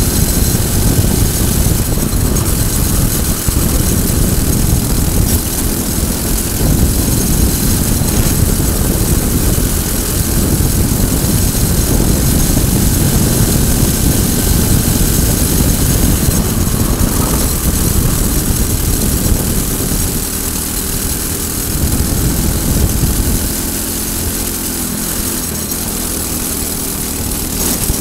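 Briggs & Stratton single-cylinder four-stroke kart engine running hard near full throttle at racing speed, with wind noise over the camera. The engine note drops a little about three-quarters of the way through as the kart slows for a corner.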